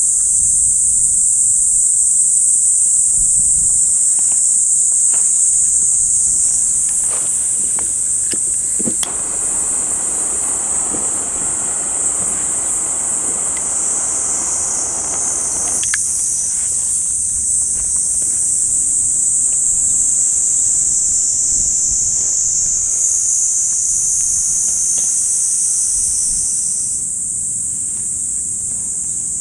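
A steady, high-pitched chorus of summer insects chirring without a break. A few sharp clicks come about seven to nine seconds in, then a rustling noise lasts several seconds and stops abruptly.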